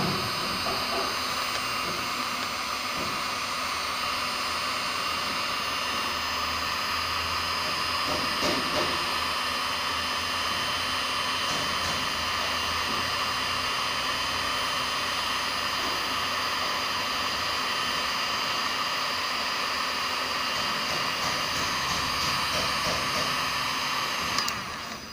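Electric heat gun running, a steady rush of blown air with a fan whine, cut off near the end with a click as it is switched off.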